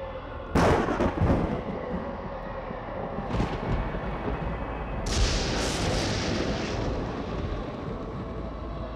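Dramatic film sound effects: a sudden loud, thunder-like boom about half a second in, then further crashes and a rushing hiss through the middle, over a faint steady drone.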